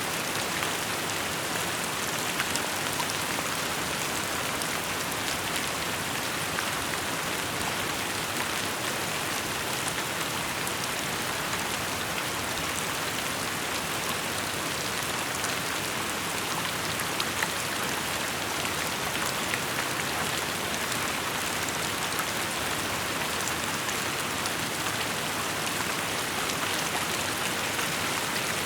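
Steady rain falling and pattering on surfaces, an even hiss with many small drop ticks through it.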